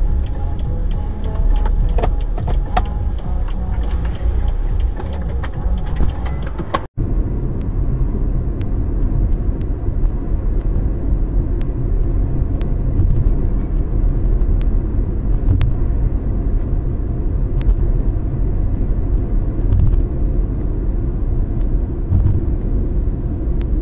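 Moving car heard from inside the cabin through a dashcam's microphone: a steady low rumble of engine and tyres on the road, with light clicks and rattles in the first part. The sound cuts out briefly about seven seconds in, and the rumble goes on after it.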